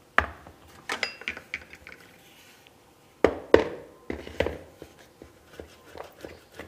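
A plastic mixing bowl and a stainless steel box grater set down and handled, giving several sharp knocks, one with a short metallic ring. Near the end, lighter repeated strokes as a boiled potato is rubbed down the grater.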